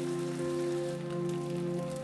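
Panko-breaded tofu sticks frying in shallow avocado oil, a steady crackling sizzle. Soft background music with long held notes plays over it.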